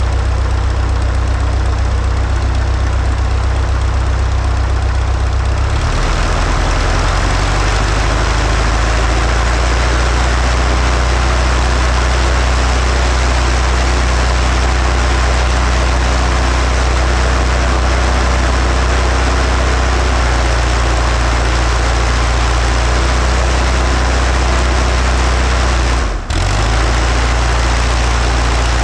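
Light aircraft's piston engine and propeller running on the ground, with a steady low drone. About six seconds in the engine note changes and a louder rushing noise comes in; near the end the sound drops out for an instant.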